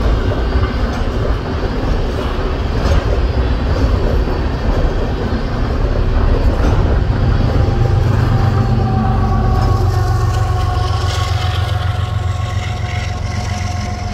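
Covered hopper cars of a freight unit train rolling past with steady wheel and rail clatter. About halfway through, the rear distributed-power diesel locomotive goes by and its engine adds a deep rumble. Steady high tones join near the end.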